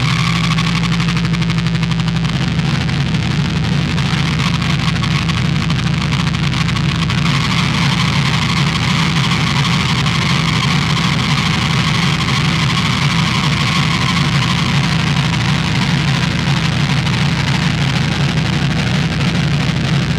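DIY Devil's Triangle drone synth played through a chain of effects pedals into an Orange Micro Dark amp and a Marshall 4x12 cabinet. It makes a loud, continuous, distorted low drone with a noisy hiss over it, and its tone changes about two seconds in.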